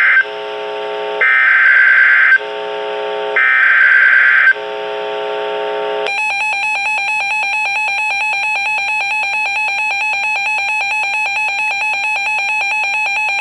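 Emergency Alert System alert on NOAA Weather Radio: raspy bursts of SAME header data tones, each about a second long with short gaps between, then about six seconds in the steady attention signal tone begins and holds, signalling a warning message to follow.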